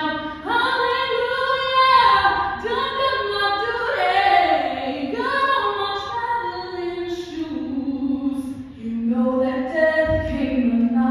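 High school chamber choir of mixed voices singing in sustained chords that change every second or two, with a brief soft passage late on.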